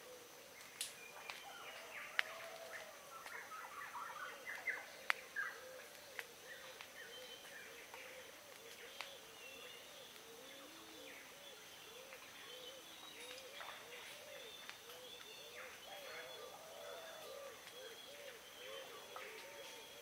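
Tongan birds calling. A low, rising-and-falling note repeats steadily about twice a second, with higher chirps and trills over it that are busiest in the first six seconds. A few sharp clicks stand out in that first part, over a steady thin high tone.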